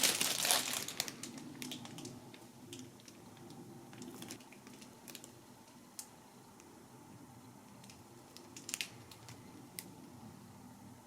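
Packaging being handled as a new controller is unwrapped from its box: a loud crinkle in the first second or so, then quieter rustling with scattered small clicks.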